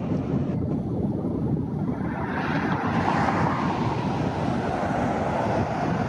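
Wind rumbling on the microphone, with the rushing noise of a passing vehicle that swells about two seconds in and fades away near the end.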